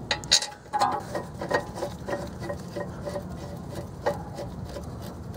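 Light metallic clinks and ticks from hand tools on brake caliper hardware: one sharp clink near the start, then a run of lighter ticks about twice a second.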